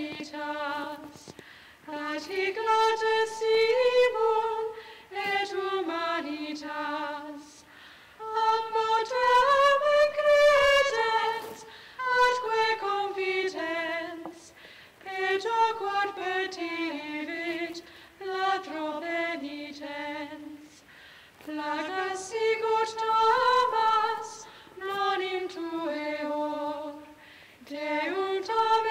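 A high voice singing a slow Latin hymn unaccompanied: one melodic line in phrases of two to three seconds, with short breaths between them.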